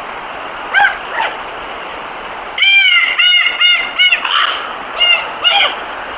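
A series of short animal calls over a steady hiss, each one rising and falling in pitch. Two single calls come in the first second or so, a quick run of five or six about two and a half seconds in, and two more near the end.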